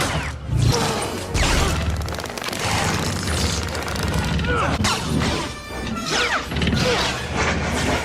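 Background music with several sharp impacts and quick swooping glides in pitch laid over it.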